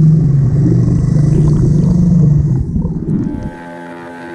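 Outboard motor propeller running underwater, heard through a submerged camera: a loud, muffled low drone with a steady hum. It drops suddenly to a quieter, steady hum about three and a half seconds in.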